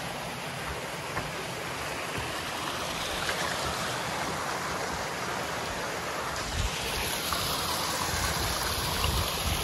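Mountain creek running over rocks and boulders, a steady rushing hiss of water that gets a little louder after about six seconds.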